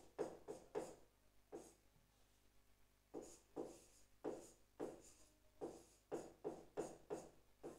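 Faint strokes of writing on a board, a couple of short scrapes a second, with a pause of about a second near the start.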